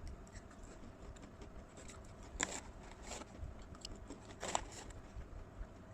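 A person biting into and chewing a crinkle brownie cookie, faint, with a few short sharp crunches, the clearest about two and a half and four and a half seconds in.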